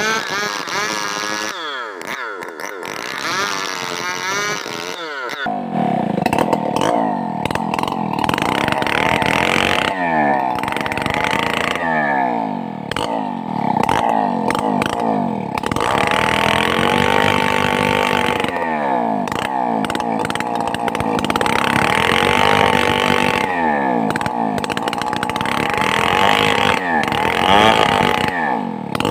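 Stihl 070 two-stroke chainsaw with a nearly worn-out chain cutting timber: the engine revs up and drops in pitch again and again as it loads up in the cut, lighter for the first few seconds.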